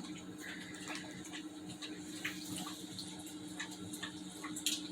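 A Labrador dog lapping water from its bowl: irregular wet laps and slurps, over a steady low hum.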